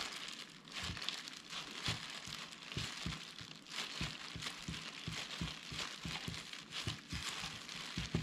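Disposable plastic gloves crinkling and rustling as hands roll and squeeze a kimbap roll of seaweed and rice, with many soft low bumps as the roll is pressed against a wooden cutting board.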